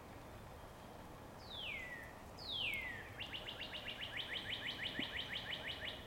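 A songbird singing: two whistled notes sliding down in pitch, followed by a fast trill of about seven short notes a second.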